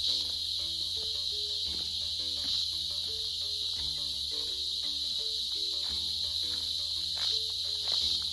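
A steady, high-pitched chorus of insects drones without a break. Soft background music with sustained, changing notes plays beneath it.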